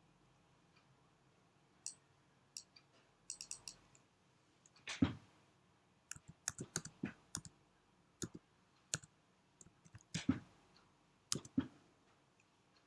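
Faint, irregular sharp clicks and taps, some in quick clusters, with a few heavier knocks; the loudest knock comes about five seconds in.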